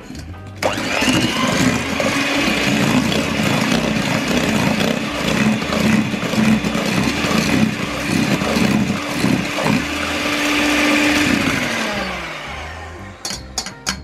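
Electric hand mixer with wire beaters whirring steadily in a stainless steel bowl of thin cake batter, blending milk and oil into whipped eggs and sugar. It is switched on just under a second in and switched off near the end, its pitch falling as it winds down, followed by a few light clicks.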